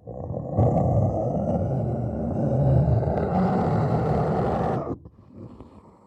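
The Kothoga creature's roar, a movie monster sound effect: one long, rough roar that swells about half a second in, holds, and cuts off sharply, followed by a faint rasping growl that fades out.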